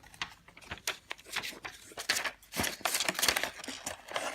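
Paper and packaging being handled: irregular crinkling and rustling as the printed leaflets come out of the keyboard's box.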